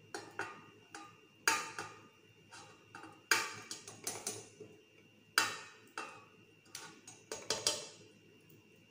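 Irregular clinks and knocks of kitchenware as softened butter is scraped from a glass bowl into a stand mixer's steel bowl: about a dozen sharp taps, the loudest about a third of the way in and about halfway.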